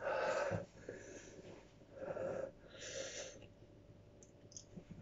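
A man breathing hard and noisily through an open mouth, three heavy breaths within the first three and a half seconds, from the burning heat of a superhot chilli he has just eaten.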